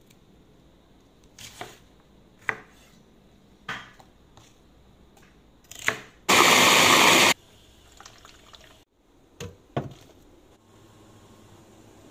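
A kitchen knife striking a wooden cutting board in four separate chops, then about a second of loud steady rushing noise that cuts off suddenly, and two more knocks.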